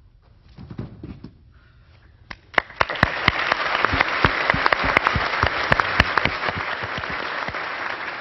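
Audience applauding, starting about two and a half seconds in, with many sharp individual claps standing out over the dense clapping.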